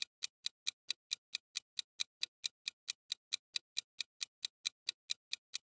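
Countdown timer's clock-tick sound effect: rapid, evenly spaced ticks, a little over four a second, running while the answer time runs out.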